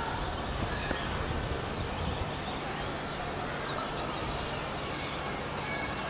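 A large flock of small birds calling overhead: many short, high chirps and whistles overlapping at random, over a steady low background rumble of the city.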